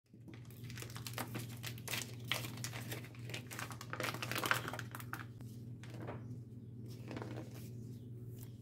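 Packaging of a roll of store-bought puff pastry rustling and crinkling in irregular handfuls as it is opened and the pastry unrolled on its backing paper, loudest about four seconds in, over a steady low hum.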